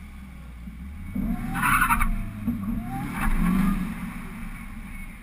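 Supercharged 6.2-litre V8 of a 2009 Cadillac CTS-V revving hard twice with tyres squealing, as in a burnout before a drag run, over a steady idle rumble.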